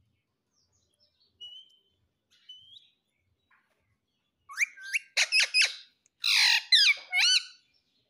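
Indian ringneck parakeet calling: two faint short whistles, then a quick run of loud, sharp chirping calls with rising, curving pitch sweeps, one of them longer and harsher, in the second half.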